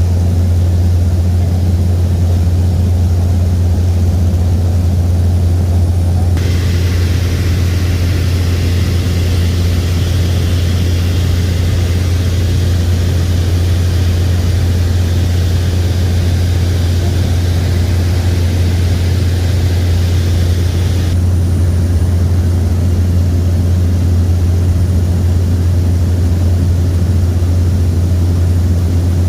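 Cabin noise of a de Havilland Canada DHC-6 Twin Otter in flight: its two turboprop engines and propellers drone with a strong, steady low hum. A higher hiss joins in for about fifteen seconds in the middle.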